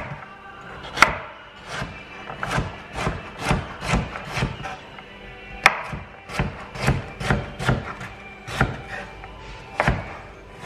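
Knife dicing a carrot on a wooden cutting board: a run of knocks as the blade hits the board, about two a second with a few short pauses.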